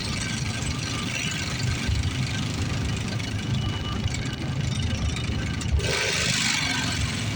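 Cabin noise of a Bombardier CRJ-900 regional jet on its takeoff run: a steady, unsettled low rumble, with a brief hiss about six seconds in.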